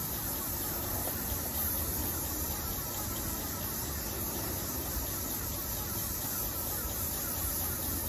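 Airless paint sprayer gun hissing steadily as it sprays a fan of paint.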